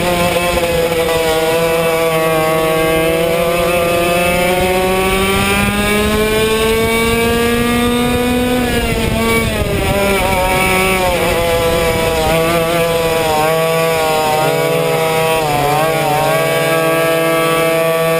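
Yamaha 100cc two-stroke kart engine running at race pace, close to the microphone. Its pitch climbs steadily for about eight seconds, drops off as the throttle lifts, wavers on and off through the corners, then climbs again near the end.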